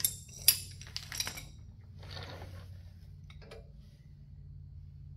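Sharp metallic clinks of hand tools and hub parts, four in the first second and a half, then a short scraping rustle and a few light ticks, over a steady low hum.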